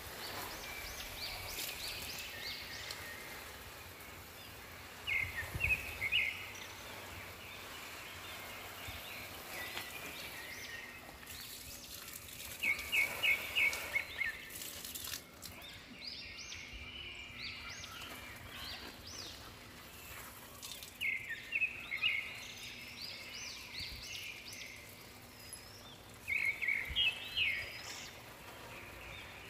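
A bird calling in four short bursts of rapid, high chirps, several seconds apart, over a faint steady hiss.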